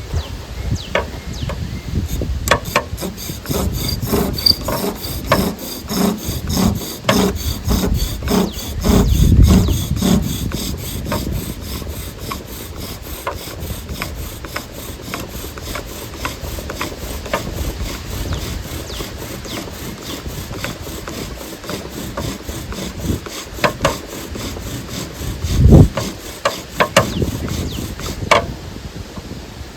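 Bow drill at work: a yucca spindle driven back and forth by the bow in a spalted white oak fireboard, making a rubbing, rasping grind that repeats with each bow stroke, roughly two to three strokes a second. This is friction drilling to build up hot dust for an ember.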